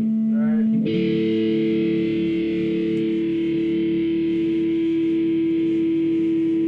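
Music: a distorted electric guitar holding a sustained note or chord, which changes to a new held one about a second in.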